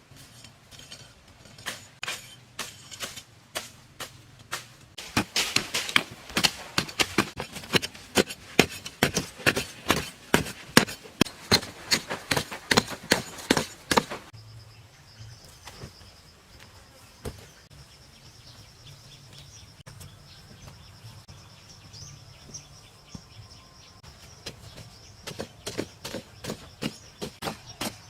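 Hand tool striking over and over, about three blows a second, loudest and densest for the middle third. After that a steady high-pitched tone carries on under a few scattered strikes, which pick up again near the end.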